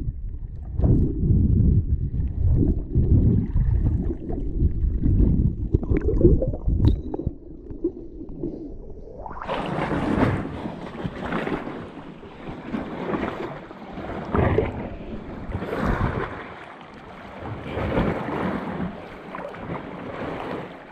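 Muffled, deep rumbling and sloshing of sea water heard through an underwater camera as a swimmer moves in a sea cave. About nine seconds in, the camera breaks the surface and the sound opens up into open-air splashing and lapping of sea water, with wind on the microphone.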